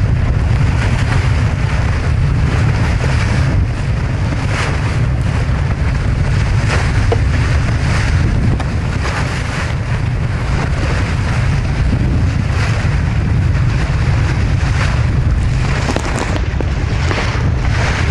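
Strong wind buffeting the microphone over the rush and splash of water along a sailing trimaran's hulls as it sails fast in a breeze, with frequent short splashes.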